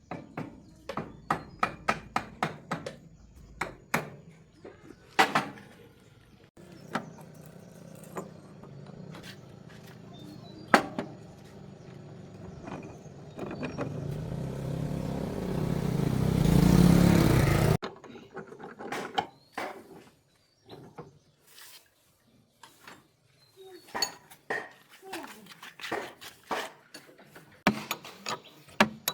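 Metal hand tools and parts clinking and knocking in quick, irregular strikes during a tractor clutch repair. Partway through, a rushing noise builds up for several seconds and then stops abruptly, after which the clinking resumes.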